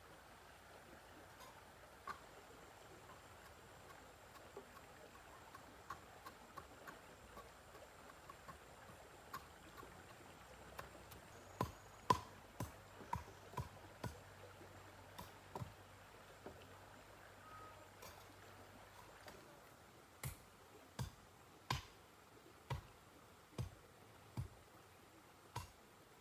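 Faint, sharp knocks of a tool striking bamboo. They are scattered at first, with a louder cluster about halfway, then come as a steady run of a little more than one knock a second near the end.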